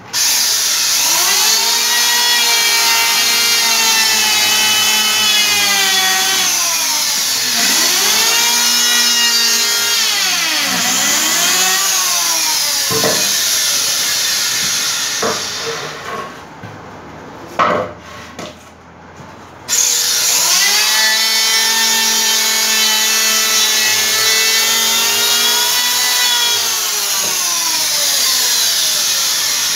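Handheld electric power saw cutting wooden strips: the motor whines, its pitch sagging and recovering several times as the blade bites into the wood. It stops about 16 seconds in, with a few knocks in the pause, and starts up again about 20 seconds in.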